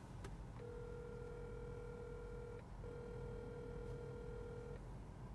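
Phone ringback tone through a smartphone's loudspeaker while a call waits to be answered: two steady tones of about two seconds each with a short break between, over a low steady hum.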